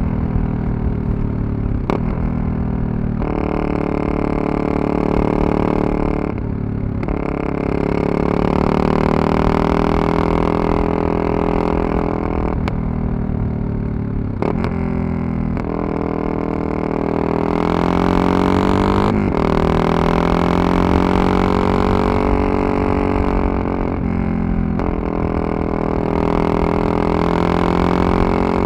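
Yamaha MT-03 660's single-cylinder engine running under way, with an even droning note that rises and falls in pitch. It drops out briefly several times as the rider changes gear.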